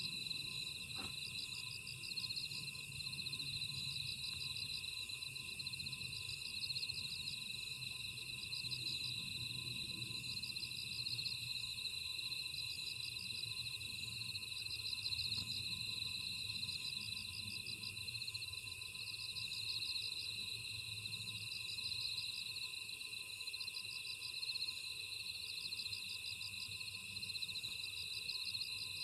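Night chorus of crickets and other grass insects: several steady high trills, with one insect giving short pulsed chirps about once a second.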